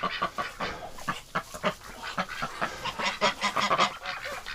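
A flock of domestic geese honking, mixed with ducks quacking, in many short, overlapping calls.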